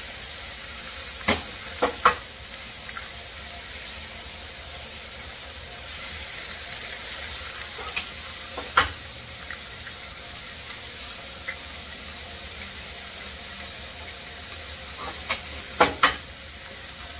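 Meat and vegetables frying in a skillet with a steady sizzle, broken by sharp cracks of eggs being cracked open: a few about a second in, one near nine seconds, and a quick cluster near the end.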